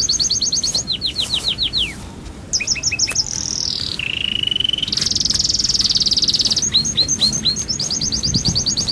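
A songbird singing a long, varied song of rapid repeated down-slurred notes, about seven a second. The song changes phrase several times, with a short pause about two seconds in, a steady whistle a little before midway and a fast high trill after it.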